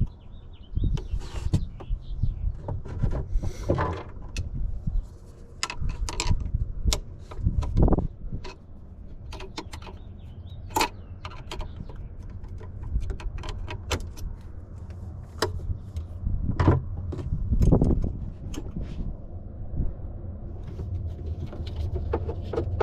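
Scattered clicks, clinks and knocks of hand tools and small metal parts being handled while cables are disconnected from a jet ski's carburettors, with a few heavier clunks among them.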